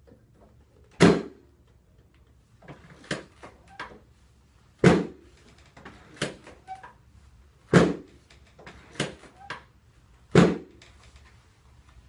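Chiropractic drop table: four loud, sharp thuds about three seconds apart as the padded pelvic drop section gives way under the chiropractor's thrusts into the lower back. Softer knocks and clicks come between the thuds.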